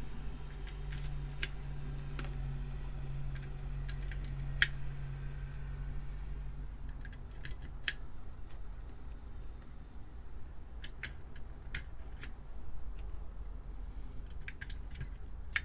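Keycaps being pushed back onto a calculator keyboard and handled: scattered small sharp clicks, some in quick pairs, over a low steady hum that stops about halfway through.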